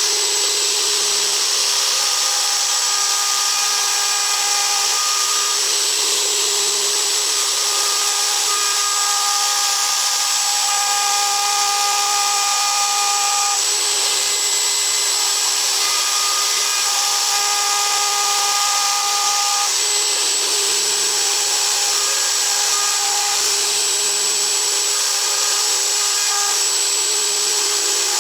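ASIMA AR 1200 CNC router spindle cutting a die-board base, a steady high whine over a loud hiss, its pitched tones changing every few seconds as the cut goes on.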